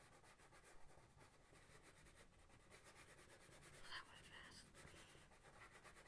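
Faint, steady scratching of a Prismacolor colored pencil shading on paper, pressed lightly to lay down a first layer of colour.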